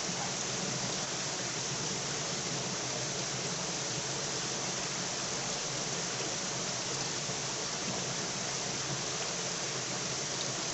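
River water rushing in a steady, even noise.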